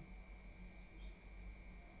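Near silence: faint room tone with a low hum and a thin, steady high tone.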